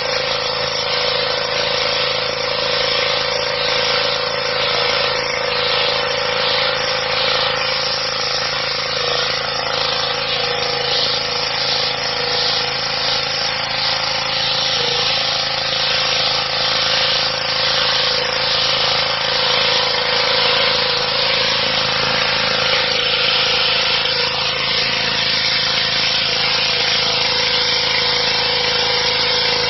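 Petrol-engined high-pressure washer running steadily, its water jet hissing as it blasts dirt off stone patio paving. The spray hiss pulses about once a second through the first half.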